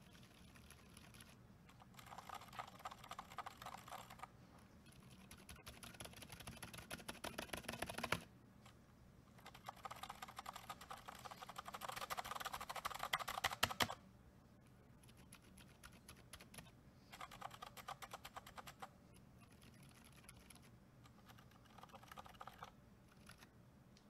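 Typing on mechanical keyboards fitted with Zilents and Gazzew Boba U4 silent tactile switches: several bursts of fast, muted keystrokes with short pauses between them.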